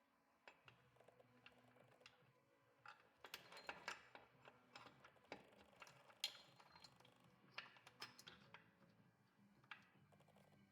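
Faint, scattered clicks and light taps of small steel gearbox parts, the shift forks, shift drum and shift linkage, being handled and fitted into an open motorcycle crankcase, with a denser run of clicks a few seconds in.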